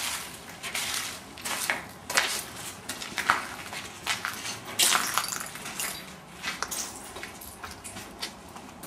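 Footsteps crunching and rustling over rough ground, in irregular short bursts.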